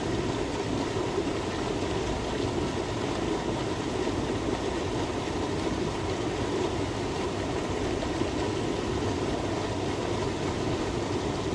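Steady rushing of water pouring over a spillway.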